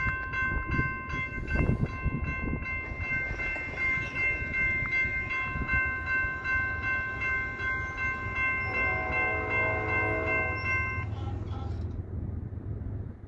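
Freight locomotive's multi-chime air horn sounding one long blast that cuts off about eleven seconds in, over the rumble of a freight train. A second, lower horn chord joins for the last few seconds of the blast.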